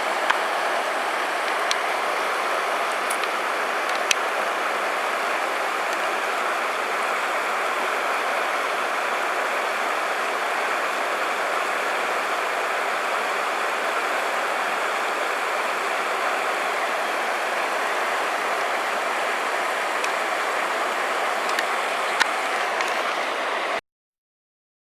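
A steady rush of running water, with a few faint clicks, cutting off suddenly near the end.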